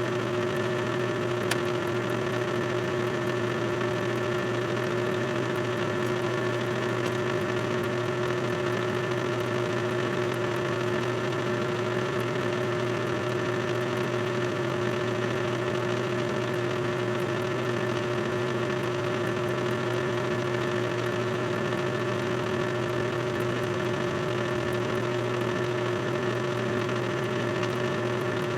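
Small electric drill running at a steady speed with a thin bit, an even whine that holds its pitch throughout, with one faint click about a second and a half in.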